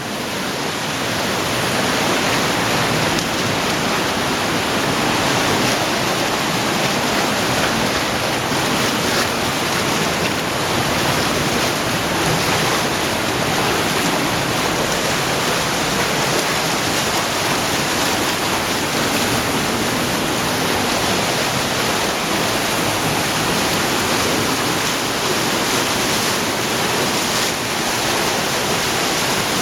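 Underground cave stream in near-flood spate, the fast-flowing water rushing loudly and steadily; it swells a little over the first couple of seconds.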